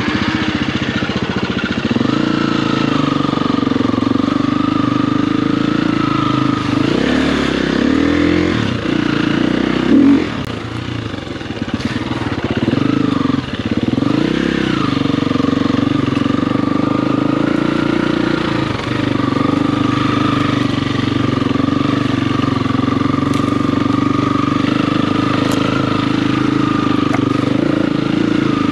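Motocross dirt bike engine running under way, mostly held at steady revs, with a stretch of rising and falling revs and a brief loud burst of throttle about a third of the way through.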